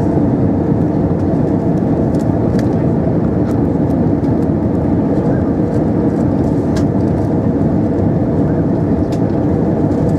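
Steady cabin noise of an Airbus A320-232 on approach: the hum of its IAE V2500 turbofans and the rush of airflow, heard from a window seat over the wing, with a few faint clicks.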